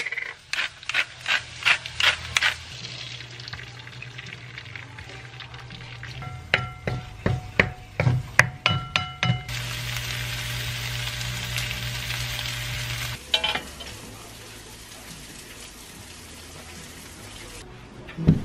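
Food frying in a stainless steel pan: quick clicks and scrapes as diced potatoes and bacon are seasoned and stirred with a wooden spoon, then a steady sizzle of bacon strips frying for a few seconds near the middle.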